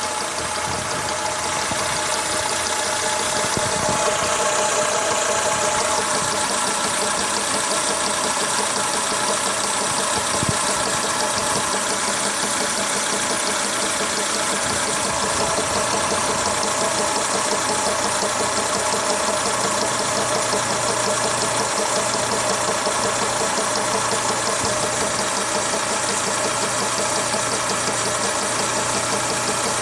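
Renault Logan engine idling steadily with a knocking noise, which the owner traced to a defective belt.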